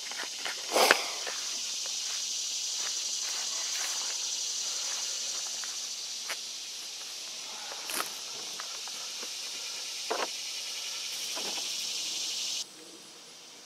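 Steady high buzzing of insects that stops abruptly near the end, with a few knocks and clicks as a man steps into and sits down in a plastic boat hull.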